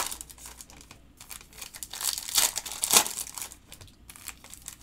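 Foil trading-card pack wrappers crinkling and tearing as packs are ripped open by hand, in irregular rustling bursts, loudest about three seconds in.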